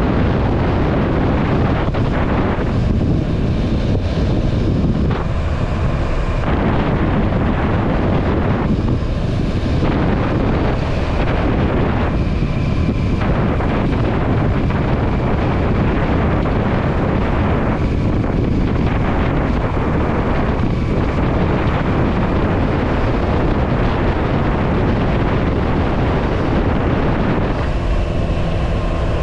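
Wind rushing over the microphone of a moving motorcycle at road speed, with the bike's engine running underneath. Several times the wind thins briefly and the engine's tone comes through more clearly, most plainly near the end.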